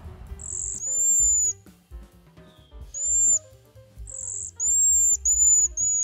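Cedar waxwings' high, thin whistled calls: a series of drawn-out notes, one about a second in, another around three seconds, then several in quick succession toward the end, over soft background music.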